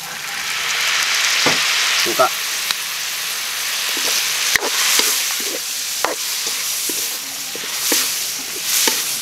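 Pork innards sizzling in a hot metal wok as vinegar is poured in and they are stir-fried. The hiss swells as the liquid hits the pan, with the spatula scraping and knocking against the wok every second or so.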